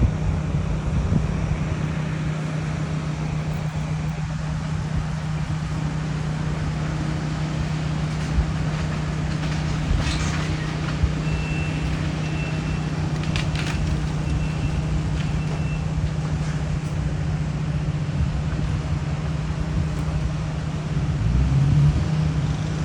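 A diesel engine of heavy demolition machinery running steadily, with a couple of sharp clanks about ten and thirteen seconds in. A high backup alarm beeps in short pulses for several seconds in the middle.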